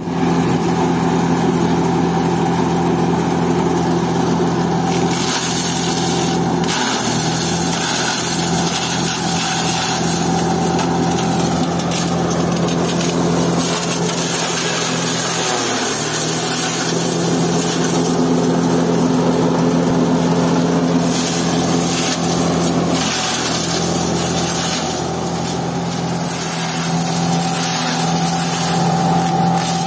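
Electric-motor-driven hammer-type chaff cutter running steadily under load, shredding dry crop stalks as they are fed in: a constant machine hum with the noise of the stalks being chopped.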